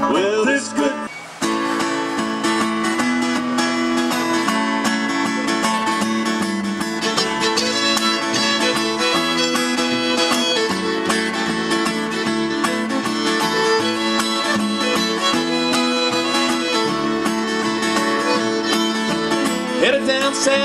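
Acoustic bluegrass instrumental break with no singing: a fiddle plays the lead over acoustic guitar and upright bass. The level dips briefly about a second in.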